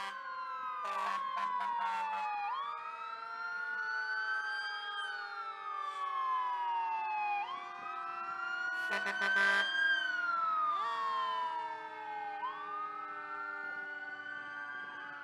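Fire truck sirens on a slow wail, overlapping, each rising and falling over about five seconds. A few short horn blasts sound about a second in, and a longer one around nine seconds in.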